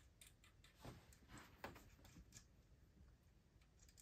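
Near silence with a few faint, scattered clicks and taps as bare hands thread the nut of an AC refrigerant line fitting onto the compressor.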